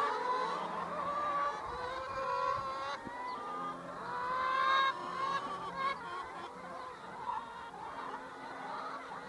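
A flock of brown laying hens calling, many short, overlapping pitched calls at once, loudest about five seconds in.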